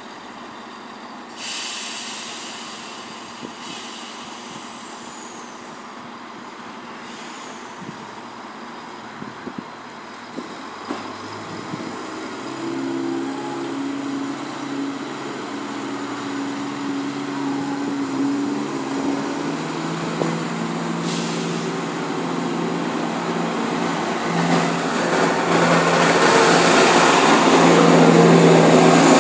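Class 170 Turbostar diesel multiple unit: a short air hiss about a second and a half in, then its diesel engines running up with a steady multi-toned drone from about twelve seconds in as it pulls forward. Near the end a loud, growing rush of a second train running in alongside takes over.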